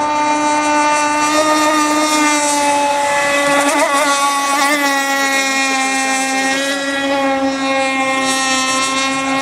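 Radio-controlled AC Razor racing boat's QD25 engine running flat out: a steady, high-pitched buzzing drone that holds nearly one pitch, wavering briefly about four seconds in.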